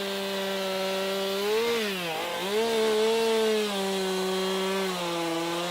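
Chainsaw running at high revs and cutting wood. Its pitch sags about two seconds in as the chain bogs under load, then recovers, and drops a little again near the end.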